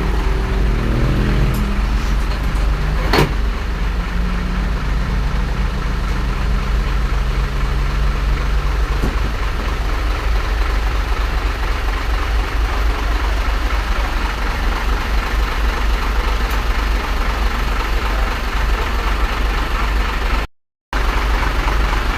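Heavy diesel truck engine running, a deep steady rumble throughout. A pitched engine drone for the first nine seconds or so then fades into the plain rumble, with one sharp click about three seconds in.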